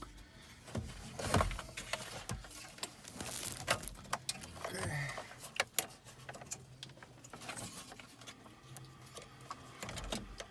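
Plastic wiring connectors clicking and rattling as they are pried and unplugged from the back of a car audio head unit, a scattered run of small clicks and knocks.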